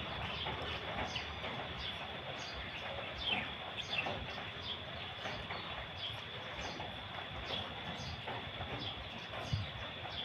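A puppy chewing food from a plastic tub, with small birds chirping irregularly around it and a steady high-pitched tone over everything.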